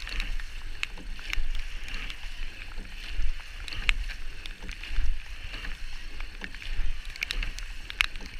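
Racing rowing eight under way, heard from the cox's seat: water rushing past the hull, with sharp clunks of oars in the gates. The sound swells with each stroke, about one every two seconds.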